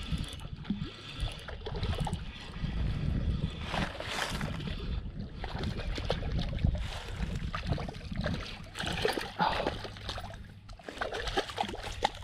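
Hooked chain pickerel thrashing and splashing at the water surface as it is fought on a spinning rod, with several stronger splashes along the way.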